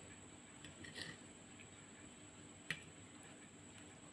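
Near-silent room with faint eating sounds: a soft mouth noise about a second in, then a single sharp click of a metal fork a little past halfway.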